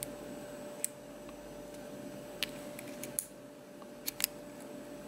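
Small, sharp metallic clicks of a hook pick working the pin stack of a Union 5-pin oval lock cylinder under light tension: about six scattered ticks, two in quick succession about four seconds in.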